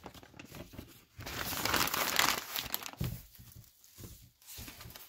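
Butcher paper crinkling and rustling as a steak is unwrapped from it and handled, loudest from about one second in to nearly three seconds, then fainter scattered rustles.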